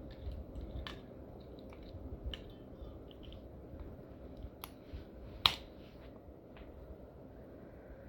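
Batteries being handled and fitted into a 2012 Furby's plastic battery compartment: scattered small clicks and taps with soft handling noise, one sharper click about five and a half seconds in.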